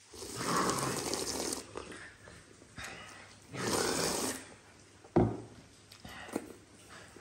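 A person slurping noodles and broth from a bowl in two long slurps, one at the start and another about three and a half seconds in, with a sharp click about five seconds in.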